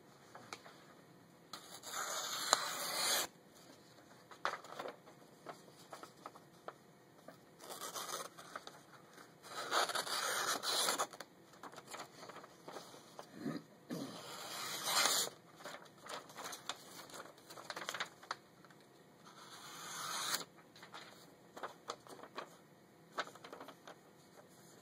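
A CPM 3V steel kiridashi blade slicing through a sheet of paper: about five cutting strokes of a second or so each, with paper rustling and small clicks between them.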